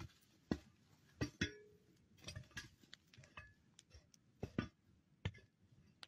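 Burning tree trunk crackling: about ten irregular sharp pops and cracks from the burning wood, one with a brief ring about a second and a half in.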